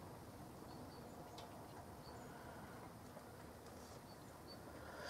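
Near silence: faint room tone with a few soft clicks from handling and working filler on a plastic model kit.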